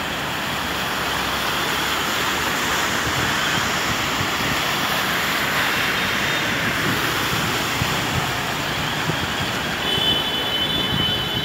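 Cars wading through a flooded street, their wheels and bodies pushing floodwater: a steady rush of splashing water mixed with traffic noise.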